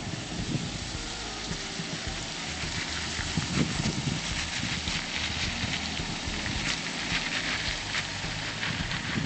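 Water splashing and churning with many small crackling spatters over a low rumble, as a four-wheel-drive vehicle fords a stream.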